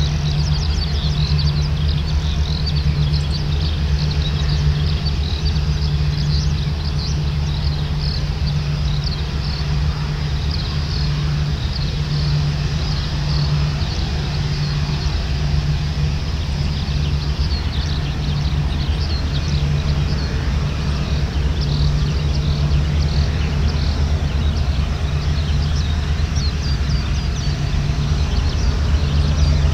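A Boeing 787-8's Rolls-Royce Trent 1000 turbofans running at taxi power as the airliner rolls by: a steady low rumble and hum, growing slightly louder near the end. Birds chirp throughout.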